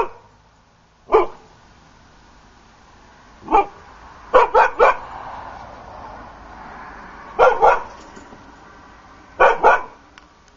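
A dog barking: about a dozen barks in small groups of one to three, spaced a few seconds apart.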